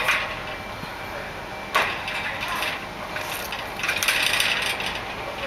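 Train approaching: a sharp metallic clank at the start and another about two seconds in, then wheel-on-rail noise swelling about four seconds in.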